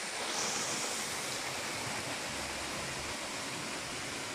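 Steady rush of water falling from a watermill's flume and splashing into the mill race.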